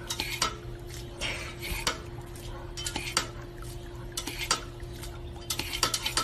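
Irregular light clicks and clinks, like kitchenware being handled, over a steady hum.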